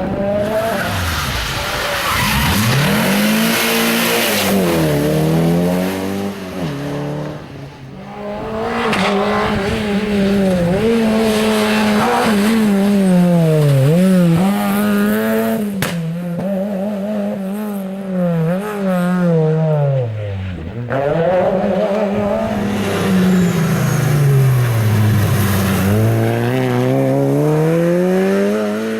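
Rally cars' engines revving hard, the pitch climbing through each gear and dropping sharply on lift-off and braking, over and over.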